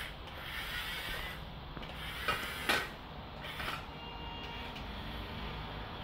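Small electric gear motors of a HUINA 1520 1:18 RC metal wheel loader running, with mechanical whirring and rubbing and a couple of sharp clicks about two and a half seconds in.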